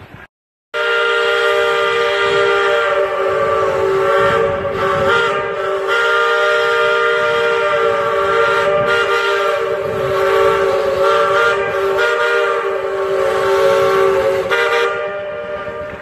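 Baldwin three-chime steam whistle blowing one long, steady blast of about fourteen seconds, its three tones sounding together as a chord. It starts just after a moment of silence and trails off near the end.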